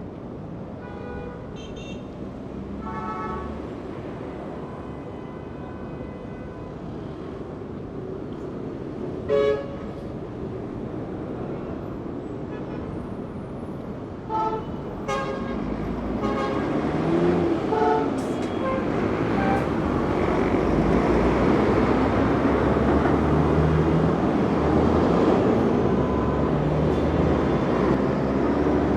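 Busy street traffic with several short car-horn toots, one brief louder blast near the middle. In the second half a heavy vehicle's engine rumbles past, growing louder and staying loud until the end.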